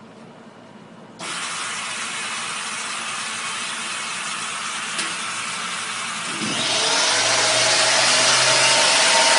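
Lens spin coater starting its cycle: a steady rushing hiss of the wash spray starts suddenly about a second in. Some five seconds later it grows louder, and a motor's whine joins it as the lens holder spins up.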